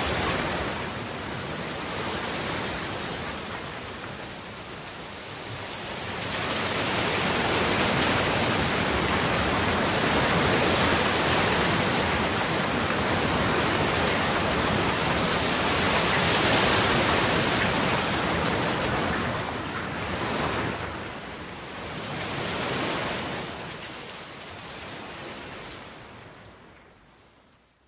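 Rain falling: a steady, even hiss that swells and eases every few seconds, then fades out near the end.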